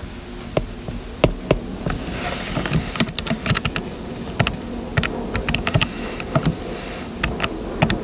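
Irregular runs of sharp clicks from keys being tapped, several in quick succession: a calculation being worked out.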